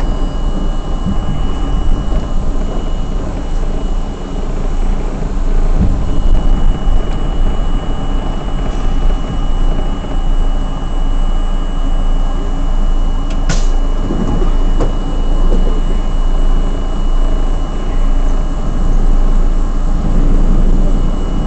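An R32 subway car running along the track: a loud, steady rumble of wheels on rail and traction motors, with a thin steady high tone over it. A single brief sharp click about two-thirds of the way through.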